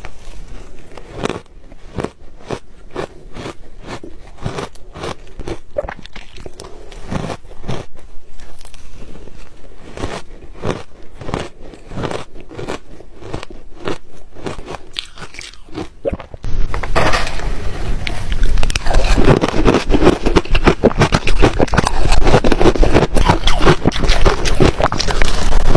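Ice being bitten and chewed: a run of crisp, crackly crunches. About two-thirds of the way through, the crunching suddenly becomes much louder and denser.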